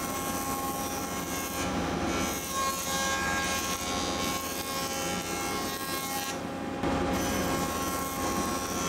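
Jointer (surface planer) running as a wooden board is pushed across its cutterhead: a steady machine hum under a rough cutting noise. The high part of the cutting sound drops out briefly about six and a half seconds in.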